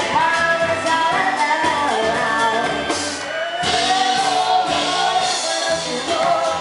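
Live band playing a song, with a singer's voice over instrumental backing and a repeating low bass line.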